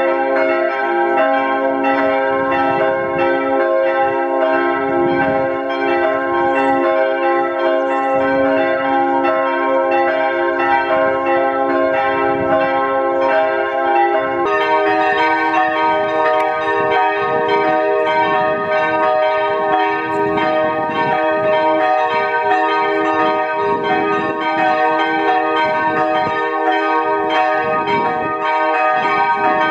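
Church bells ringing, played back sped up so that the strikes blur into a dense, sustained chord of many tones. About halfway through, the chord shifts abruptly to a different set of pitches.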